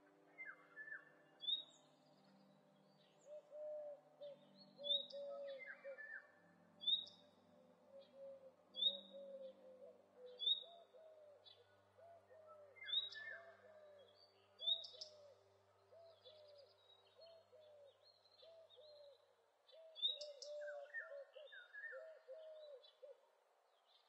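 Several birds calling: a steady run of low, quickly repeated notes, with sharp high chirps about every one to two seconds and a few mid-pitched calls in between.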